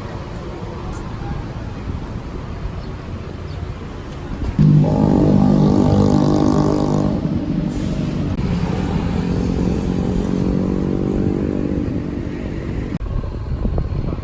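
Road traffic: a steady rush of traffic noise. About five seconds in, a motor vehicle's engine note comes in suddenly and loud, then fades over several seconds, its pitch sinking slightly as it goes.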